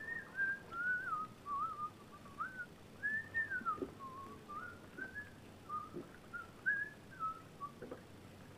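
A person whistling a slow, wandering tune: a single pure tone sliding between notes, with short gaps between phrases. A few faint knocks sound underneath.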